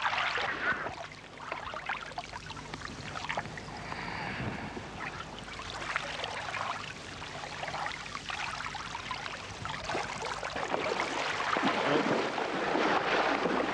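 Shallow water splashing and sloshing irregularly as fish are speared and a dog wades after them, louder near the end.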